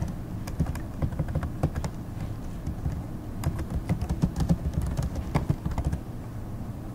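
Computer keyboard being typed on, an irregular run of key clicks as a short phrase is entered, stopping about a second before the end.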